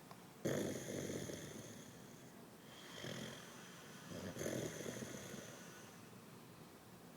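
A dog snoring: three snores, the first and loudest starting sharply about half a second in, then two more around three and four and a half seconds in, each fading out over a second or so.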